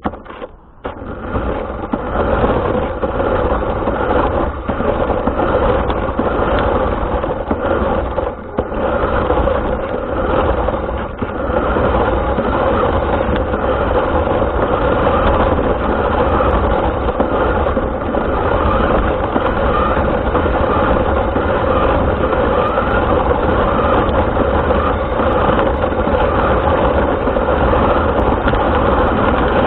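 RC car's motor and drivetrain running as the car drives, heard through its onboard camera microphone; the sound swells over the first couple of seconds as the car gets going, then holds steady.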